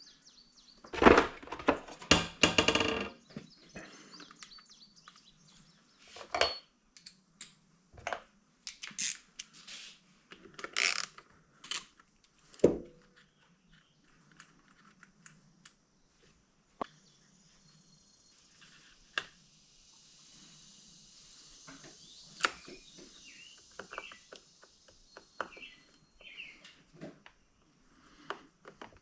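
Hand tools and small metal parts clinking, knocking and clattering as they are handled and set down during small-engine repair work, with a loud burst of clatter about a second in and scattered single clicks after.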